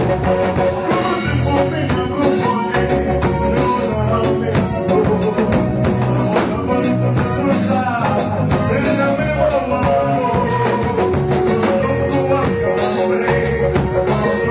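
Live gospel worship song: a man sings lead into a handheld microphone over a band with drum kit, electric guitar and keyboard, and a steady rhythmic beat.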